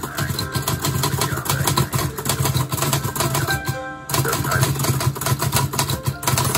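Olivetti Lettera 25 manual portable typewriter being typed on in a fast, continuous run of key strikes, with a brief pause a little past halfway.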